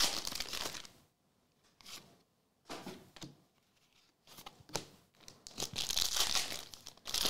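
Foil trading-card pack wrapper being torn open and crinkled, with short rustles of the cards being handled, then a second foil pack torn open with a long loud crinkle near the end.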